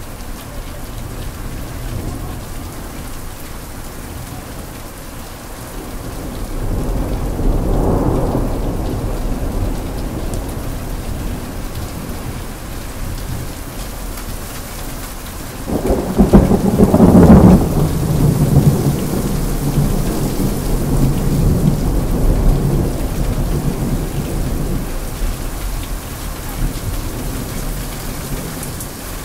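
Heavy rain falling steadily through a thunderstorm. A low rumble of thunder swells about a quarter of the way in, then a sudden loud thunderclap a little past halfway rolls on and fades over several seconds.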